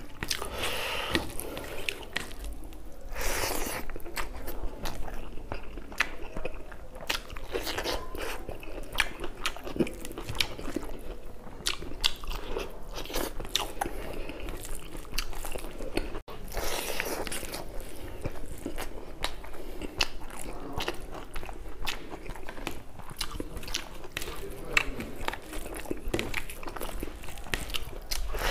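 Close-miked chewing and biting of a mouthful of rice and spicy buffalo meat eaten by hand: wet mouth clicks and crunches, irregular and continuous.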